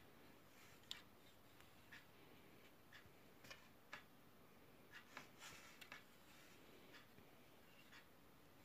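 Faint, steady ticking, about one tick a second, with a few extra light clicks in the middle as a plastic model airliner is handled and turned on its stand.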